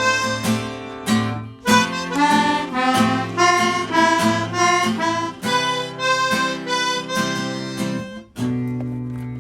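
Harmonica playing a melody over strummed acoustic guitar in an instrumental break. A little past eight seconds a final chord is struck and rings out, fading away.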